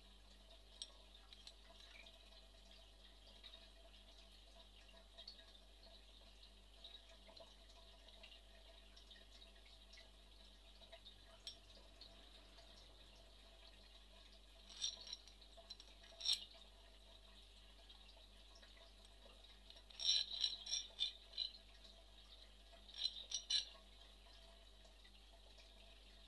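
Light metallic clinks and taps of metal parts being handled, heard in a few short clusters over a faint background hiss; the loudest clusters come about two-thirds of the way in and near the end.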